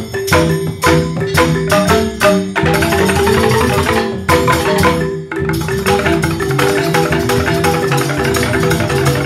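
A Balinese joged bumbung gamelan plays with bamboo xylophones (grantang) struck with mallets in fast interlocking patterns. The first few seconds are a run of clipped, accented ensemble strokes with brief breaks between them. About halfway through the playing settles into a steady, dense stream of notes.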